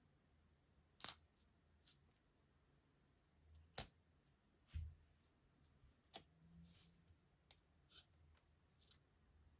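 Small metallic clicks and clinks of watch parts and tools being handled at a watchmaker's bench: two sharp clinks, one about a second in and another near four seconds, a dull thump just after, then several fainter ticks.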